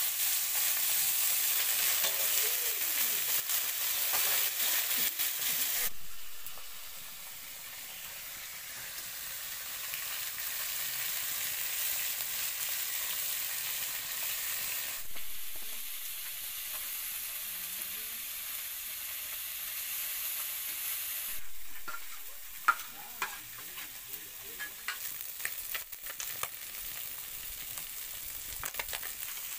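Small fish sizzling as they fry in hot oil in a wok, the sizzle dropping and rising a few times. In the later part a metal spatula scrapes and taps against the pan as the fish are turned, one tap sharper than the rest.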